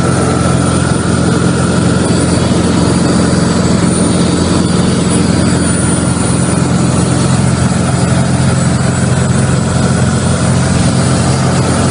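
Cabin noise of a single-engine propeller light aircraft in cruise: the engine and propeller give a loud, steady drone with a low hum, heard from inside the cockpit.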